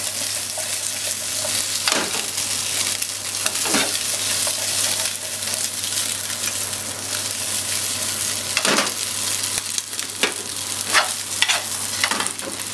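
Salmon and sliced potatoes sizzling steadily in a nonstick frying pan while being stir-fried with wooden chopsticks, with a handful of short knocks and scrapes of the chopsticks against the pan.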